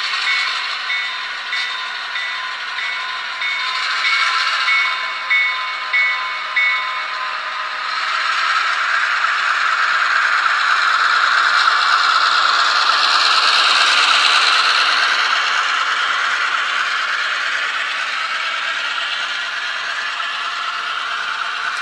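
HO-scale Athearn GP38-2W model diesel locomotive with a DCC sound decoder passing close by. Its bell rings about twice a second for the first seven seconds or so. Then the wheels of the locomotive and boxcars clatter and rattle over the rail joints as the train rolls past, loudest around the middle.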